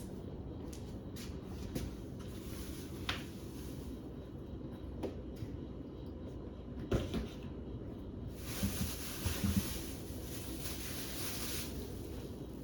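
Items being handled and taken out of a refrigerator: scattered knocks and clunks of containers, shelves and drawers, with a stretch of hissing rustle from about eight seconds in.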